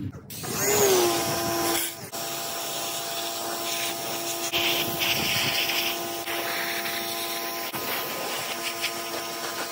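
Power tool motor starting up, its pitch sliding down as it comes under load, then running steadily with a brief dip about two seconds in.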